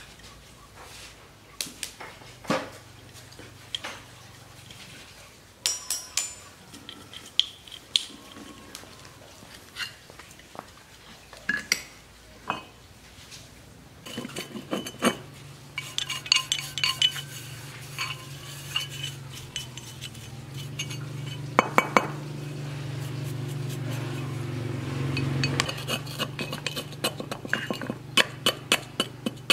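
Steel tools clinking and scraping against a rusted electric motor's metal end cover as it is worked on. Near the end comes a quick run of short scraping strokes, about three a second, as rust is scraped out of the cover. For part of the middle a low steady hum sits underneath.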